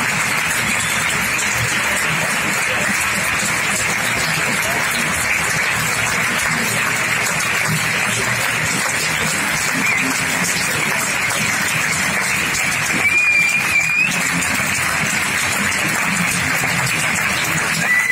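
Cinema audience applauding in a long, steady ovation. A brief wavering high tone cuts through the clapping about thirteen seconds in, and again near the end.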